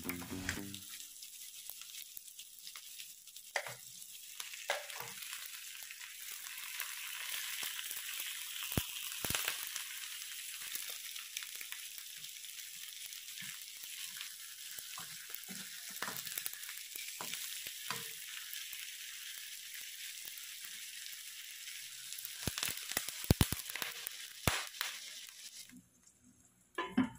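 Garlic, onion and meat trimmings frying in oil in a nonstick wok: a steady sizzle with scattered clicks and scrapes of a plastic spoon stirring. Near the end the sizzle stops suddenly as water is poured in.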